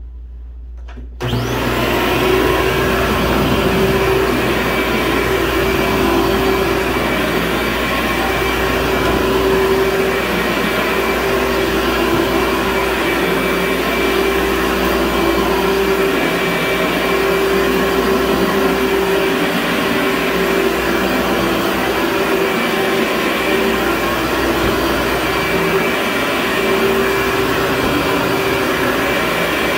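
Upright carpet vacuum cleaner switched on about a second in, then running steadily as it is pushed over carpet, a constant motor hum with a steady whine.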